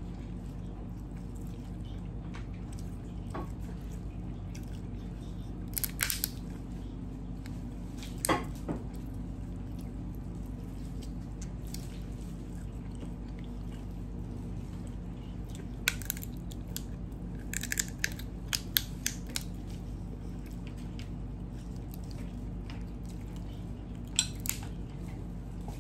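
Crab shell being cracked, picked and sucked at while eating: scattered sharp cracks and clicks, with a run of several close together about two-thirds of the way through, over a steady low hum.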